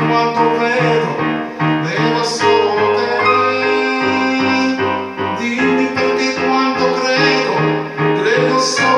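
Electronic keyboard playing a ballad accompaniment: sustained piano chords over a steady bass line.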